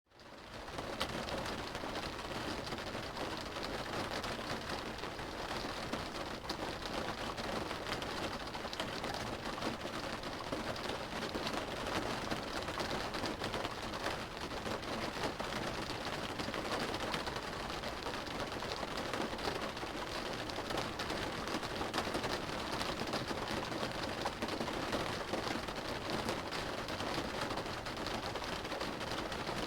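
Rain drumming on a car's roof and windows, heard from inside the cabin: a steady dense patter of drops. It fades in over the first second.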